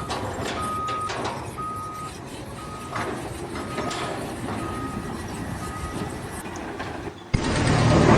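A vehicle's reversing alarm beeping about once a second, a single steady tone, over engine rumble and site noise; the beeps fade after about six seconds. Near the end a louder, rougher noise cuts in suddenly.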